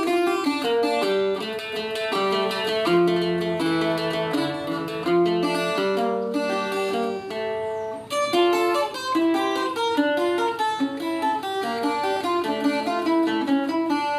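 Ten-string Puerto Rican cuatro picked in quick single-note melodic runs, playing a seis con décima.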